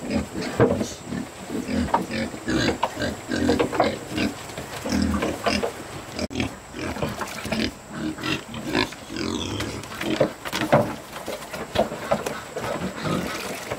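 Several pigs feeding at a trough, grunting and eating noisily in an irregular jumble of short sounds.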